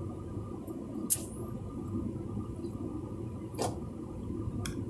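Steady low road and engine rumble inside the cabin of a moving car, with a few sharp clicks or taps, the loudest about a second in.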